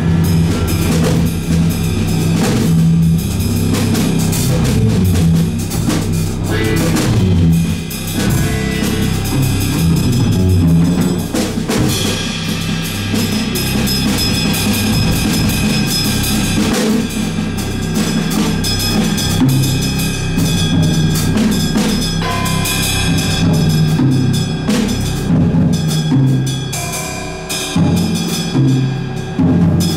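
Live instrumental progressive rock improvisation by a band: a drum kit with kick and snare to the fore, over electric guitar and a Novation keyboard, with a steady low line underneath.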